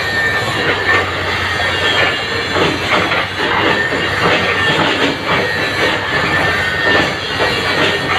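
Caterpillar 313 hydraulic excavator working: its engine running steadily under a high, steady metallic squeal, with irregular clanks and clatter throughout.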